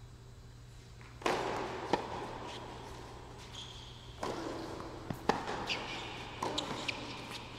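Tennis rally on an indoor hard court: a string of sharp racket strikes and ball bounces, each echoing through a large hall.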